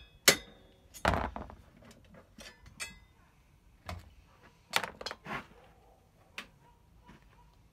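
Metal clanks and clinks from a bicycle crankset and chainring being handled, some with a short metallic ring. The sharpest knock comes right at the start, then a cluster about a second in and a few single knocks spread through the rest.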